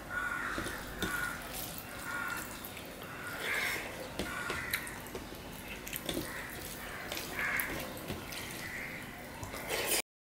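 Wet squelching and small clicks of fingers kneading rice into curry on a steel plate, repeated every second or so, mixed with chewing sounds. The sound cuts out briefly near the end.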